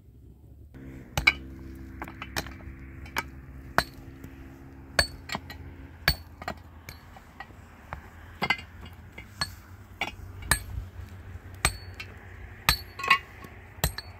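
Hammer blows on a hard surface during house building: irregular sharp metallic clinks, one or two a second, some ringing briefly.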